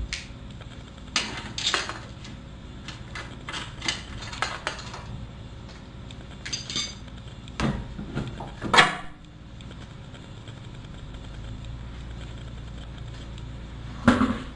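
Metal wheel hardware and hand tools clinking and clattering as they are handled at a car's wheel hub, in irregular short knocks, with the loudest knock a little after halfway and another near the end.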